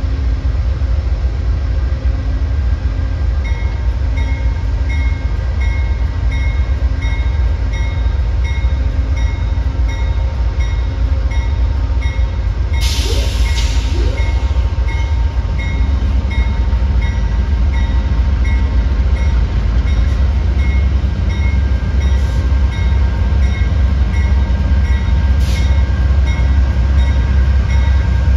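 A train running past with a heavy, steady low rumble and a faint regular tick about twice a second. A short burst of hiss sounds about halfway through.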